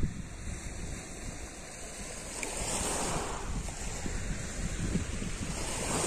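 Small sea waves washing up a pebble beach, with wind rumbling on the microphone; the surf swells louder about halfway through.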